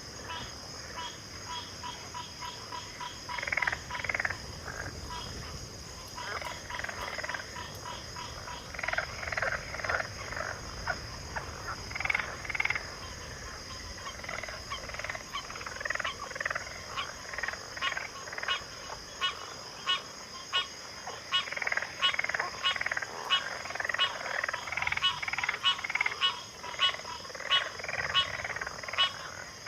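Chorus of many frogs calling at once in a backwater: overlapping croaks and rattling trills, with rapid strings of pips. A steady high-pitched shrill hum sits under it throughout. The calling grows denser and louder in the second half.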